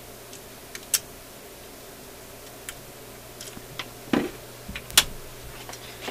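Scattered sharp clicks and a dull knock from hands handling a stereo music center and its record changer; the loudest click comes about five seconds in. A steady low hum runs underneath.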